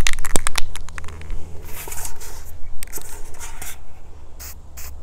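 Color Place aerosol spray paint hissing from the can in several short bursts onto a bare styrofoam block, after a quick run of sharp clicks in the first second.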